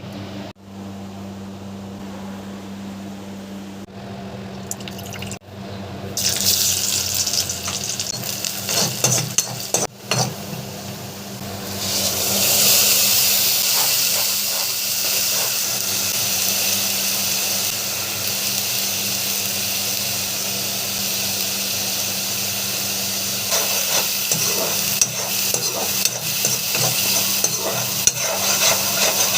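Water running and splashing in a kitchen, over several short cuts, settling from about twelve seconds in into a steady rushing hiss like a running tap.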